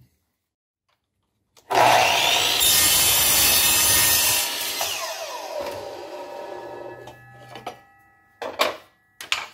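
Miter saw starting about two seconds in and cutting through 3/4-inch MDF, then the blade spinning down with a falling whine over several seconds. A few short knocks near the end.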